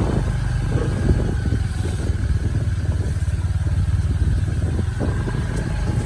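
Loaded sugarcane truck's diesel engine running as it drives along a rutted dirt farm track: a steady, loud low rumble.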